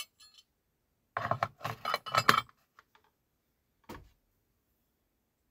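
Two cast aluminium scrap parts clattering and knocking against each other in a plastic bin, with one more knock a little before four seconds in as the bin is set down on a digital scale.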